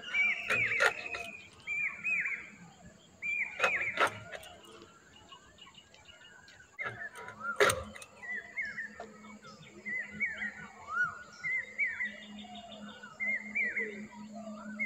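Rohu fish being chopped into steaks on a boti blade, giving a few sharp knocks, one near the start, one about four seconds in and the loudest about eight seconds in. Birds chirp over and over in the background.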